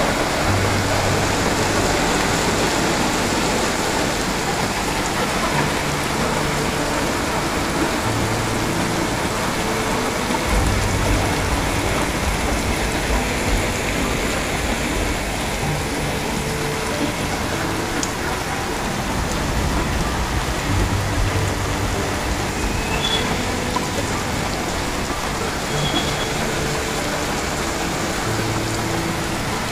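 Heavy rain pouring steadily, splashing on wet pavement.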